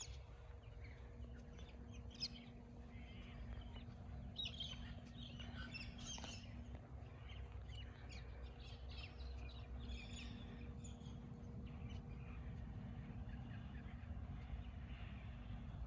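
Galahs calling faintly: a scatter of short chirps and screeches from several birds, with a steady low hum underneath.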